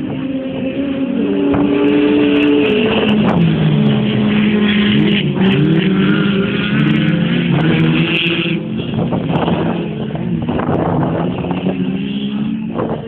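Engines of several Volkswagen Beetle autocross cars racing on a dirt track, revving up and down as they accelerate, shift and brake for corners, with more than one engine heard at once. Loudest through the middle, easing off toward the end as the cars move away.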